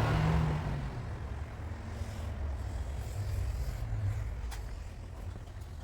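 Low vehicle rumble, loudest at the start and easing off, with a single sharp click about four and a half seconds in.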